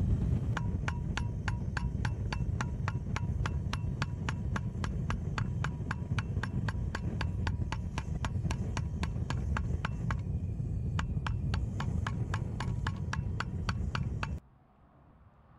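Hose-fed gas torch running steadily on a sheet-metal strip clamped on a metal form, with rapid regular clicks about five a second over its sound; it all cuts off suddenly near the end.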